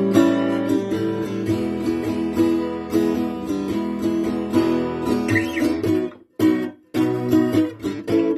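1940s Stefano Caponnetto folk/gypsy acoustic guitar strummed in ringing chords. About six seconds in the chords are cut short twice, and the playing goes on in short, choppy stabs.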